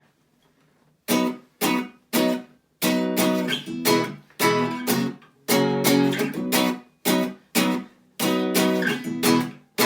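Acoustic guitar strummed in a rhythmic pattern, starting about a second in, with sharp chord strokes, some cut short and some left ringing: the song's intro.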